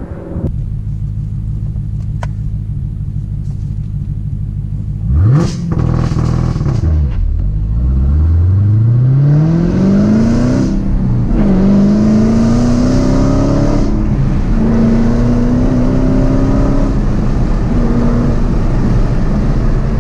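Dodge Challenger SRT Hellcat's supercharged V8 running at idle, then revs flare sharply about five seconds in and sink as the clutch takes up. The engine then pulls hard with its pitch climbing steadily, drops at an upshift of the manual gearbox near eleven seconds, and climbs again more slowly before settling into steady running.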